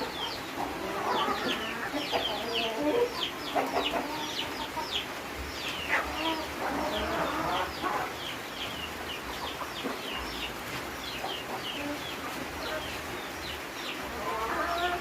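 Kienyeji chicks peeping in rapid high chirps that fall in pitch, with a hen's lower clucks now and then.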